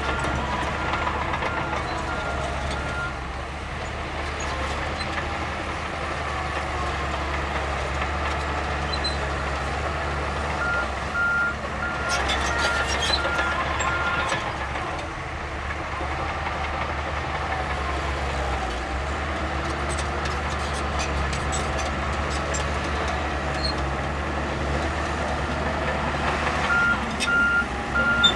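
Heavy earthmoving machinery running steadily, with a high-pitched reversing alarm beeping in spells near the start, around the middle and near the end.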